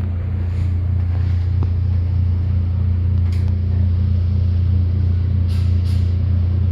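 A steady low droning bass with a few faint higher touches on top.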